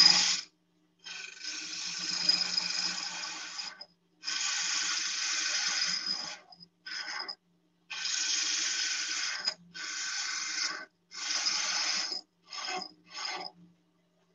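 Woodturning gouge cutting a small wooden baseball bat as it spins on the lathe: a hiss of shavings with a faint steady whine. It comes as a string of cuts, each one to two seconds long with silent breaks between them, and the last few are short.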